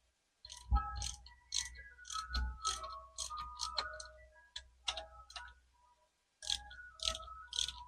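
Hand ratchet clicking in quick strokes, about three a second with short pauses, each click ringing briefly: tightening the bolts of a motorcycle handlebar riser.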